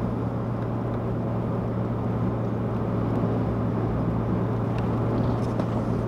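Steady low hum of a car driving: engine drone with road noise, even and unchanging.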